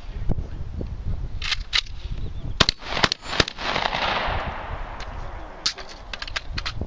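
A string of handgun shots, about nine, mostly in quick pairs, with a pause of about two seconds before the last few.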